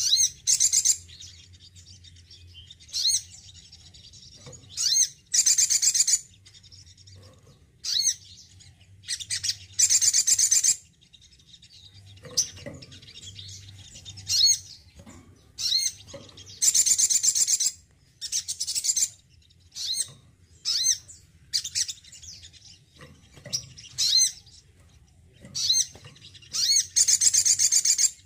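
Male sunbird (sogon) singing in repeated high, fast trilling phrases, one every second or two, some brief and some lasting over a second.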